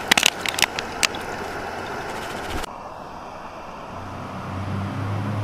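A handful of sharp crackles and snaps in the first second from stiff, frost-coated tent fabric, then a steady low hiss. Low sustained music notes come in about four seconds in.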